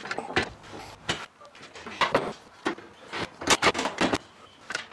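Steel drum-sander stand frame being handled and shifted on a plywood workbench during assembly: a string of irregular knocks and clunks of metal on wood.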